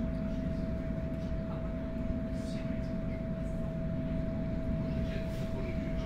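Stadler FLIRT electric train running at speed, heard from inside the passenger car: a steady low rumble from the wheels and running gear, with a steady high tone held over it.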